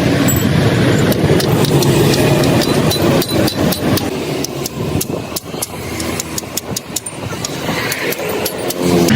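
An engine running steadily for the first few seconds. It gives way to a quieter stretch of quick, irregular sharp clicks and taps, and a steady hum returns at the very end.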